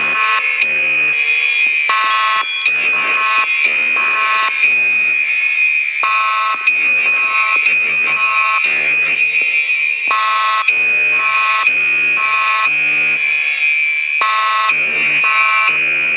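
Fire alarm horns sounding in the temporal-three pattern, three buzzing blasts then a pause, repeating about every four seconds over a continuous high-pitched tone. Temporal-three is the standard signal to evacuate a building.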